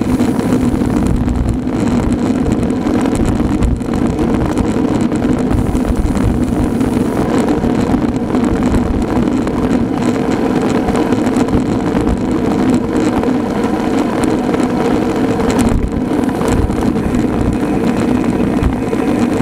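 Wind buffeting the microphone and road noise from a road bike riding at speed, over a steady low hum.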